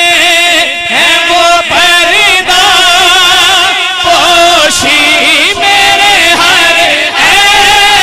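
Male naat reciter singing a devotional Urdu naat through a microphone and PA, drawing out long held notes with wavering vibrato and ornamented glides between them, without distinct words.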